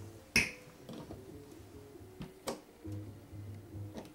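Sharp metallic clicks of clarinet keywork being handled while the keys are taken off the lower joint: a loud click about half a second in and softer ones around the middle and near the end.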